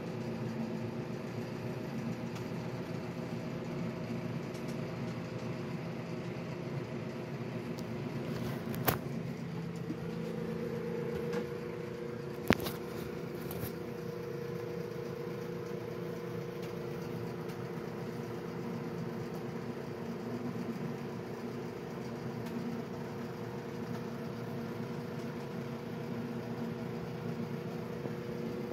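Steady machine-like hum holding several fixed tones, with a higher tone joining partway through. Two sharp clicks a few seconds apart, about a third of the way in, are the loudest sounds.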